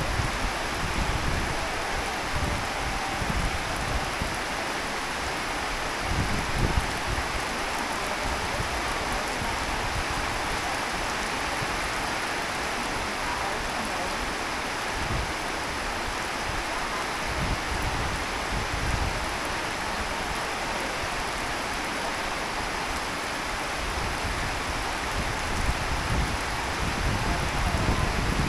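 Heavy rain falling steadily, a dense even hiss, with low rumbles coming and going underneath.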